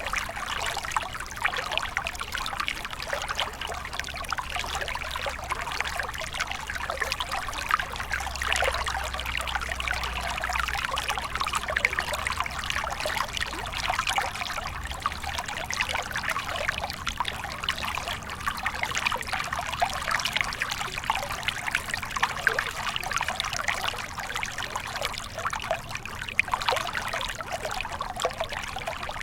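Small stream flowing steadily, water trickling and splashing over stones, a continuous busy babble.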